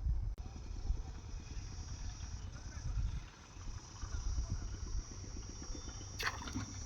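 Outdoor ambience: a low, fluttering rumble with a steady high insect drone coming in partway through. A brief sharp crackle comes near the end.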